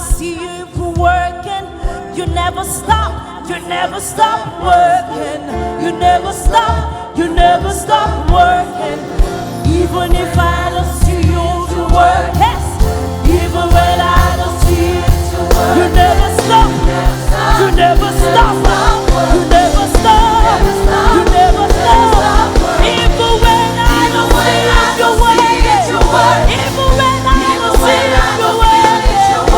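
Live gospel worship music: a band with singing, the beat growing fuller and louder about halfway through.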